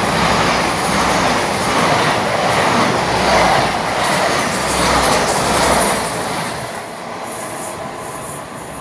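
Great Western Railway Hitachi Intercity Express Train passing through the station at speed: a loud, steady noise of wheels on rail and moving air as the coaches go by, easing off about two-thirds of the way through.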